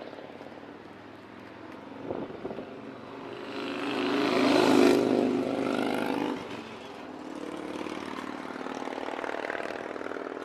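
A vehicle passing close by on the road. It builds to a peak about halfway through and then fades as its engine note drops, leaving a fainter steady engine hum.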